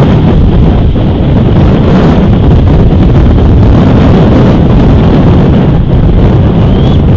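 Strong wind buffeting an outdoor camera microphone: a loud, steady, rough roar heaviest in the low end. A short, faint high chirp rises briefly near the end.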